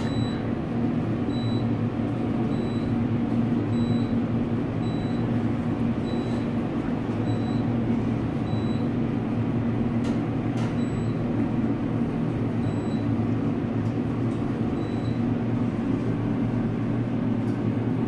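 High-rise elevator car travelling down, a steady hum and rumble in the cab, with a short high beep about every second and a quarter that stops a few seconds before the end.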